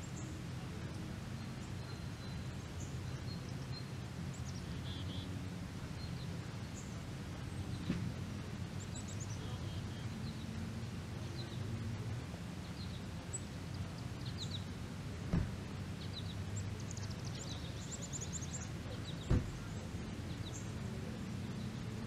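Backyard ambience of songbirds chirping and trilling here and there over a steady low rumble, with three short thumps, the two loudest in the second half.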